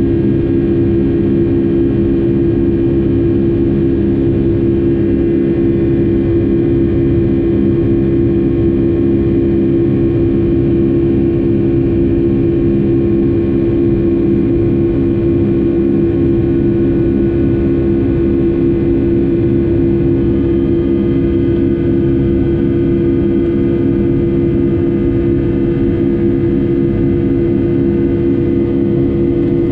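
Boeing 757-200's Rolls-Royce RB211 turbofans heard from inside the cabin, running steadily at high power. A loud, even buzz of many stacked tones sits over a low rumble: the fan's buzz-saw sound.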